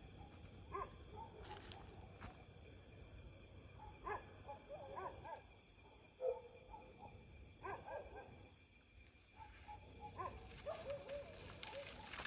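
Faint, scattered animal calls: short bark-like yelps that rise and fall in pitch, coming every second or two.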